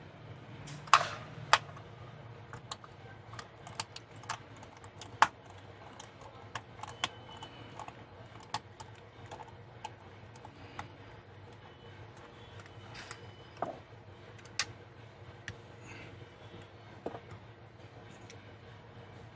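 Irregular light clicks and taps of a Sony Handycam CX405 camcorder's small plastic and metal parts being handled and worked on by hand. The sharpest clicks come about a second in, half a second later, and again around five seconds in, over a faint steady hum.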